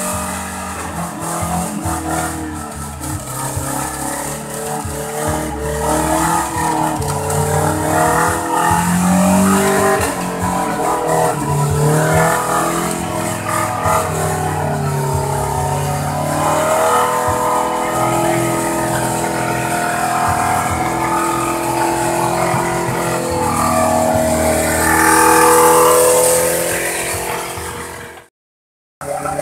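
Suzuki Jimny 4x4 engine revving hard through mud, its pitch rising and falling repeatedly as the throttle is worked. Near the end it cuts off briefly.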